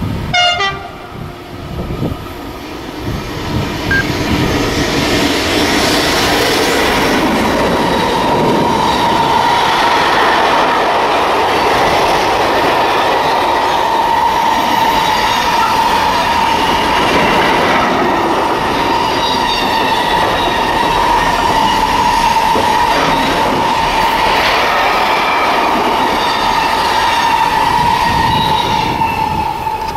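Long freight train of container and stake wagons rolling past, wheels clattering over the rail joints, with a steady high wheel squeal throughout. The sound builds over the first few seconds as the train arrives.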